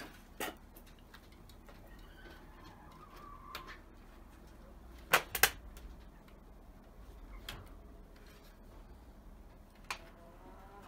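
Scattered sharp knocks and clicks of wooden door-frame slats being handled and fitted together, the loudest a pair of quick knocks about five seconds in.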